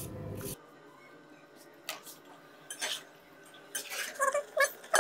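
A low hum cuts off suddenly, followed by a few scattered light knocks and clinks of kitchen utensils and cookware. Near the end, a quick run of short, pitched sounds begins.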